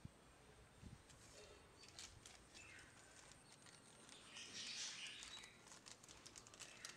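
Faint crinkling of a small clear plastic zip bag of servo horns being handled, loudest for about a second near the middle, with scattered light clicks of small parts being picked up.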